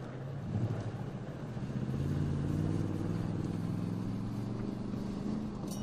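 Toyota Tundra TRD Pro pickup's 5.7-litre V8 running under acceleration, its engine note climbing slowly in pitch from about two seconds in.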